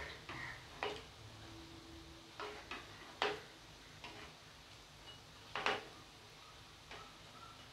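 A metal spatula clinking against the frying pan in a series of sharp knocks, two louder ones mid-way, as long bean pakoras are turned in hot oil, over a faint sizzle of frying.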